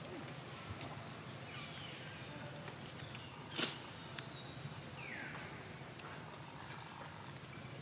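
Outdoor natural ambience with a steady high hiss. A single brief loud noise comes about three and a half seconds in, and a faint short falling chirp near five seconds.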